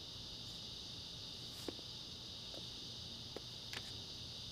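Insects, likely crickets, chirring faintly and steadily, with a few soft clicks.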